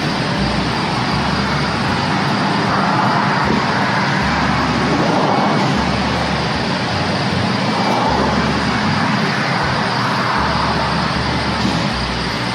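Gas torch burning with a loud, steady, even rush of flame, scorching a carved wood surface to darken and blend it.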